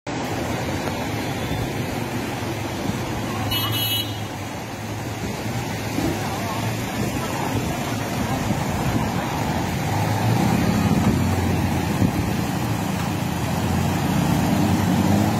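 Cars and scooters driving through street floodwater: a steady wash of water and tyres with engine hum, the engine growing louder in the last few seconds as a car pushes a bow wave past. A short high beep about three and a half seconds in.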